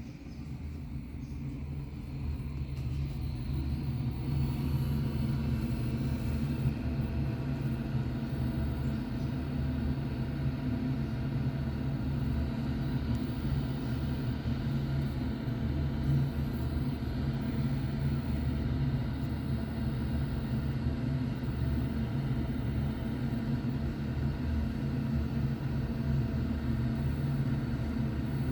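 A steady low humming rumble, building over the first four seconds and then holding level.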